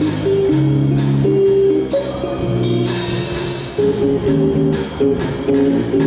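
Small live jazz band playing: keyboard notes and chords over a drum kit keeping time with regular cymbal strokes.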